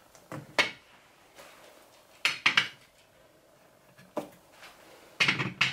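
Bottles and ornaments being set down and shifted on a shelf tray: a series of light knocks and clinks, a few at a time, with short quiet gaps between them.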